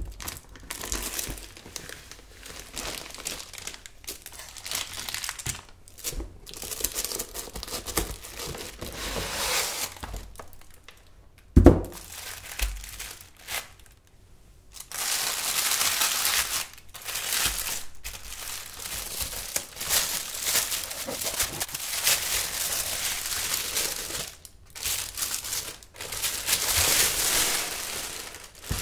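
Printed wrapping around an aluminium keyboard case crinkling and rustling in bursts as it is handled and peeled off. One heavy thud about twelve seconds in, the loudest sound, as the wrapped keyboard is set down.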